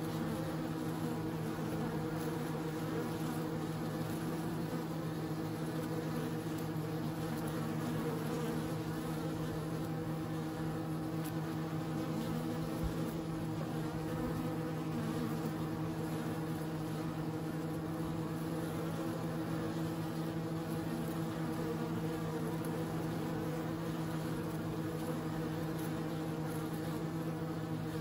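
Honeybees buzzing at a hive entrance as many fly in and out: a steady, even hum.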